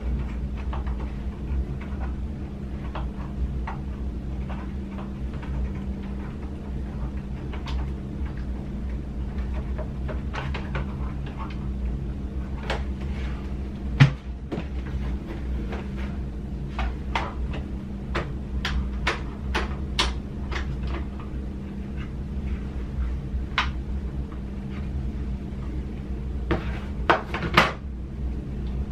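Scattered clicks and taps of hard objects being handled, with one louder knock about halfway through and a quick run of clicks near the end, over a steady low hum.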